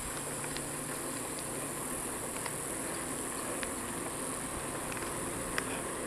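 Steady high-pitched insect chorus over a low rumble of a bicycle rolling on asphalt, with a few faint ticks.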